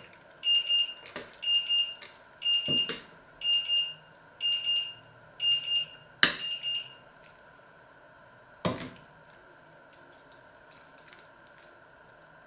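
An electronic beeper in the kitchen sounds about once a second, seven high beeps that stop about seven seconds in. A metal ladle knocks against a stainless steel pot four times as soup is served.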